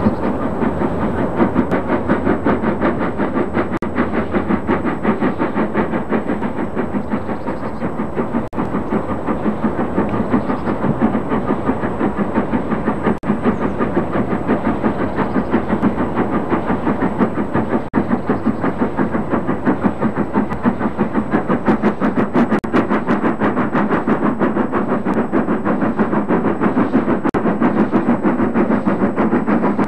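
LMS Jubilee class three-cylinder 4-6-0 steam locomotive 5593 Kolhapur working a train as it approaches, its exhaust beating in a rapid, even rhythm.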